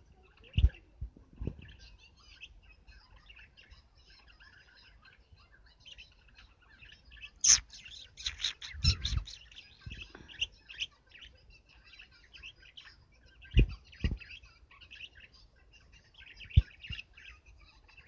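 Pet budgerigars and a lovebird chattering and chirping, with a loud chirp about seven and a half seconds in followed by a quick run of chirps. A few dull knocks come in between.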